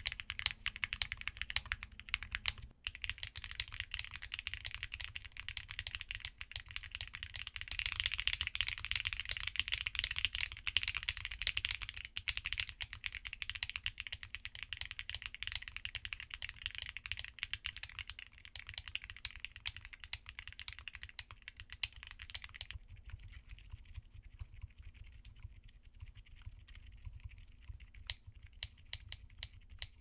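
Rapid typing on a mechanical keyboard, with the switch type changing between short sound-test clips of Akko V3 switches (Piano Pro, Silver Pro). About 23 s in, the keystrokes turn much quieter as the board moves to Akko's silent switches, the Fairy linears by the end.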